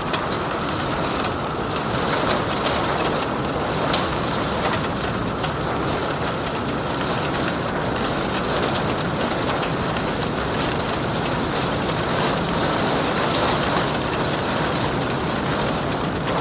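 Steady rain falling, with wind, and scattered sharper drop hits ticking through it; one louder hit about four seconds in.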